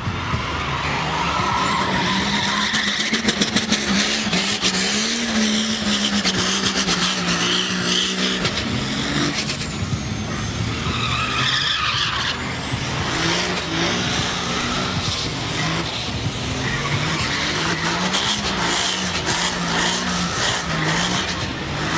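Turbo-diesel Cummins 6BT inline-six in a rat rod held at high revs through a burnout, the engine note rising and falling again and again, with the rear tyres spinning and screeching on the pavement.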